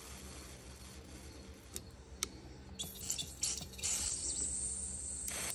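A Polaris Ranger 800 fuel injector clicks open twice as 12-volt leads are touched to it. Then come short hissing spurts and a steady hiss as pressurized carburetor cleaner sprays out through the injector nozzle.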